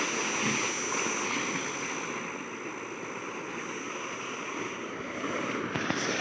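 Water gushing from a pipe into a small concrete tank, splashing steadily.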